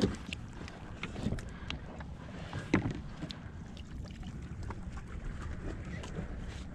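Steady wind and water noise around a small open boat, with scattered small clicks and knocks as a hand line is pulled in hand over hand; one louder knock comes a little under three seconds in.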